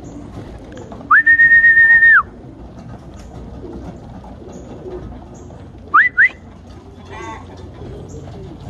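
Pigeons cooing, with a loud, long whistle held on one pitch about a second in and two short rising whistles near six seconds: whistling to call young racing pigeons down into the loft.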